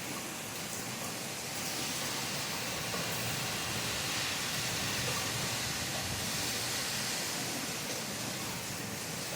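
Steady rain, an even hiss that swells slightly through the middle.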